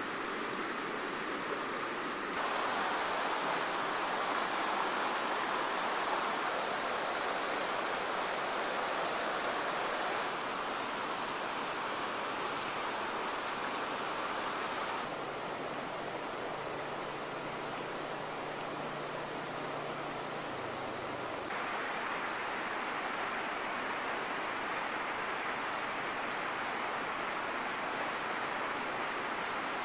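Steady rush of a flowing river, an even wash of water noise whose tone shifts a few times, with a high, rapid pulsing buzz joining about a third of the way in.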